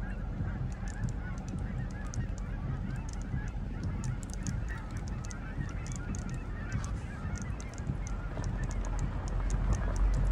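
A large mixed flock of snow geese and Canada geese calling continuously, a dense chorus of many overlapping honks, over a low rumble that grows louder near the end.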